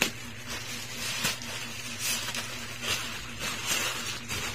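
Plastic courier bag and plastic wrapping rustling and crinkling in short bursts as the bag is pulled off the parcel and handled.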